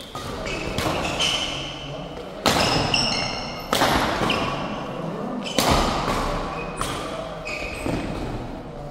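Badminton doubles rally: rackets hitting the shuttlecock in about five sharp, echoing strikes a second or two apart, with sports shoes squeaking briefly on the court between the shots.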